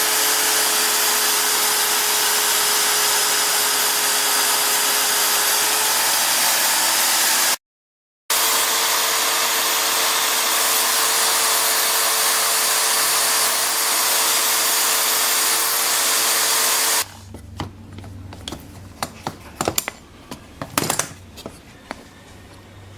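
An electric power tool running steadily with a constant whine, broken once by a brief gap about eight seconds in. It stops about 17 seconds in, leaving a few light clicks and knocks.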